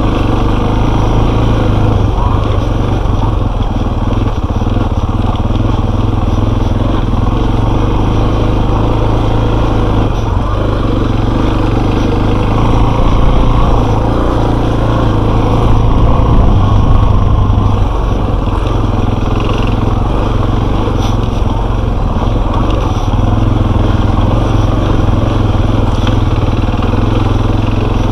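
Enduro motorcycle engine running steadily while riding, the revs rising a little twice and easing off about two-thirds of the way through.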